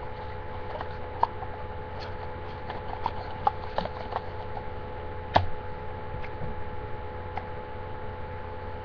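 Scattered light clicks and taps of a perfume box being handled close to the microphone, with one sharper click about five seconds in, over a steady electrical hum.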